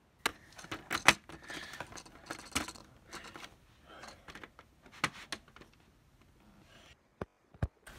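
Plastic Lego pieces being handled: scattered small clicks and rattles of hard plastic, with a few sharper snaps.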